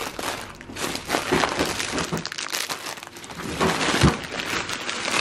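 Plastic snack packets crinkling and rustling as they are handled and shuffled, with a soft thump about four seconds in.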